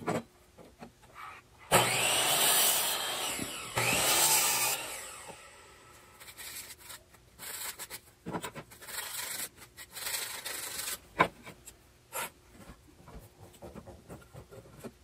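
Harbor Freight electric miter saw cutting wood, running loudly about two seconds in and again about four seconds in, then winding down. Afterwards boards are slid and rubbed on the saw table, with a few sharp knocks.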